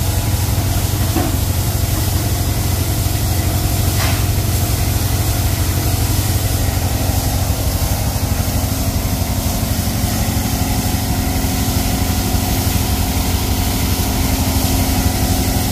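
Heavy engine running steadily at a constant speed, a deep even rumble with a steady hiss over it.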